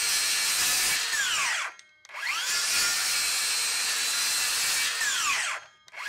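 DeWalt 60V Flexvolt 7-1/4" brushless cordless circular saw (DCS578) cutting a board at full speed. About a second and a half in, the trigger is released and the electric brake winds the blade down in half a second; it starts up again with a rising whine, cuts on, and brakes to a stop again near the end.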